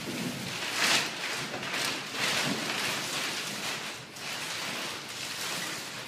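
Large pink anti-static plastic bag rustling and crinkling as it is pulled up and off a metal equipment chassis. The sound comes in several swells, the loudest about a second in.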